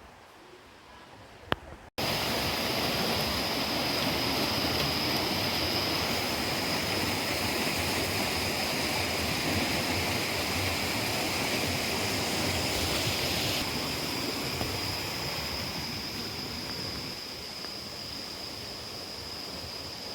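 Waterfall: a steady rush of falling water that cuts in suddenly about two seconds in and eases slightly near the end, with a thin, steady high-pitched whine running through it.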